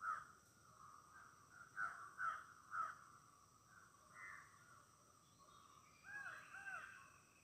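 Wild birds calling: four loud, short calls in the first three seconds, then a pair of quick swooping calls about six seconds in. Fainter calling goes on throughout, over a steady high-pitched drone.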